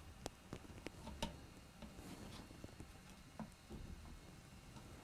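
Faint, irregular small metallic clicks as a 5 mm nut driver turns a nut anti-clockwise off the blade arm of an Andis T-Outliner hair clipper.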